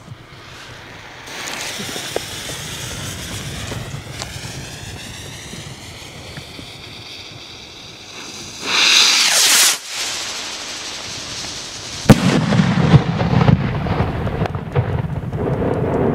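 Thunderking rocket hissing for several seconds as it climbs, with a louder burst of hiss lasting about a second near the middle. About twelve seconds in comes a single loud bang, followed by a long rolling echo.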